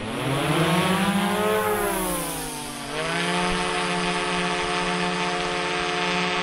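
DJI Mavic Pro Platinum quadcopter's motors and propellers spinning up for take-off: a buzzing whine that starts suddenly, rises in pitch, dips about three seconds in, then holds steady.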